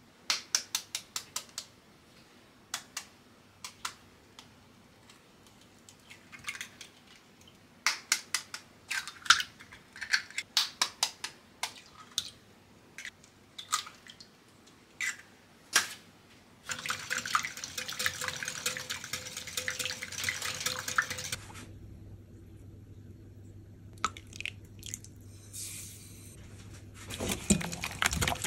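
Eggs cracked into a glass mixing bowl: scattered sharp taps and cracks of shell, some in quick clusters. A steady hiss runs for several seconds in the middle. Near the end a wire whisk starts beating the eggs in the glass bowl with a rapid clicking.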